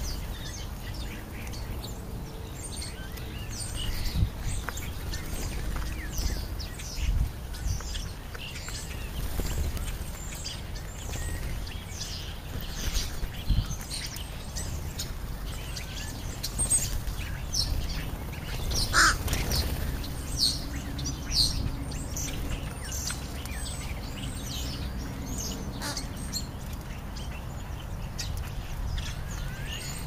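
European starlings calling while they feed: short high chirps, squeaks and whistles scattered throughout, one louder whistle about two thirds of the way through, over a steady low rumble.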